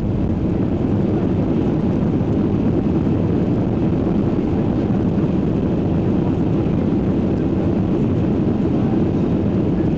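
Steady cabin noise of a Boeing 737-800 airliner: the jet engines and airflow make a dense, even rumble, heard from inside the passenger cabin.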